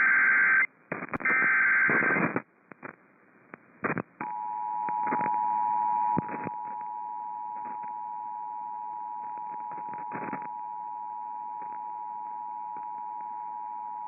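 Emergency Alert System SAME header, two bursts of buzzing digital data tones in the first couple of seconds. After a gap of faint clicks, the steady two-tone EAS attention signal starts about four seconds in and holds, dropping in level a couple of seconds after it starts. Together these announce that an alert message follows.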